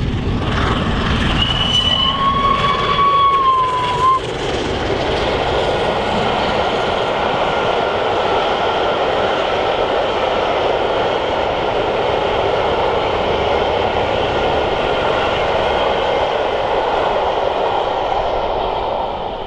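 Peppercorn A1 steam locomotive 60163 Tornado passing at speed with a long train, its exhaust loud at first, with a high steady tone lasting about three seconds near the start. Then the steady rumble and clatter of the coaches rolling by, dying away at the very end.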